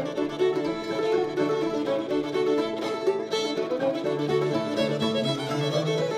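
Old-time string band playing an instrumental tune, the fiddle carrying the melody over banjo, mandolin and guitar.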